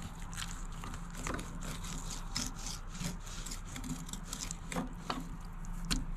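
Filleting knife cutting and scraping through fish on a board: a run of short, irregular scrapes and taps over a steady low hum.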